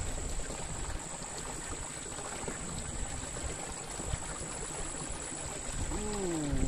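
Water running steadily through a small muddy ditch, splashing over a low outlet. Near the end, a short tone falls in pitch.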